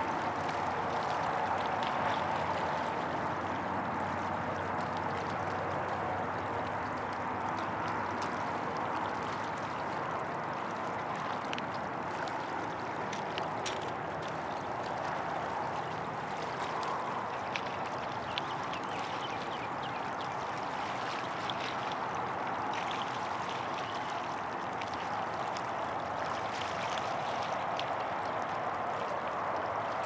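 Water of the Tennessee River flowing in a steady rush, with small splashes and trickles scattered through it and a faint low hum underneath.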